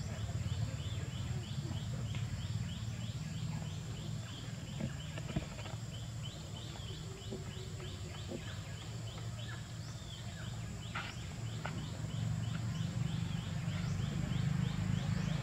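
Outdoor ambience: a steady low hum under a quick, even run of short high chirps that stops about ten seconds in, with a few faint snaps.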